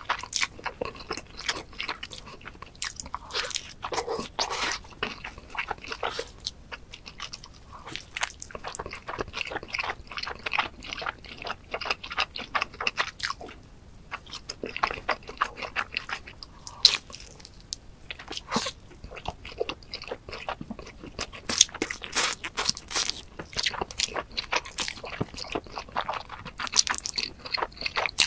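Close-miked eating sounds: a thick, toasted pizza crust loaded with melted cheese bitten and chewed, in irregular runs of crisp crunching and wet chewing.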